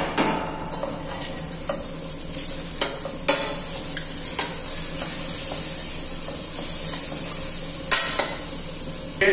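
Thin slices of raw papaya sizzling as they are sautéed in a hot stainless-steel saucepan, stirred with a steel ladle that clinks against the pan now and then.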